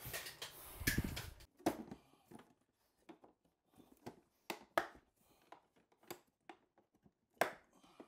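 Scattered light knocks and clicks, roughly one a second, with a louder low thump about a second in.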